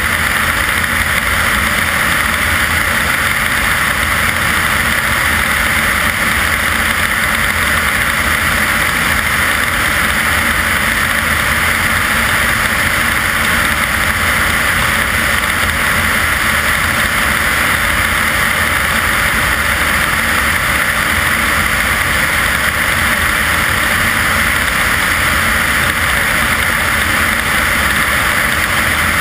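Steady, loud drone of a light aircraft's engine and propeller in flight, mixed with the rush of airflow over an externally mounted GoPro camera; the sound holds even throughout with no change in power.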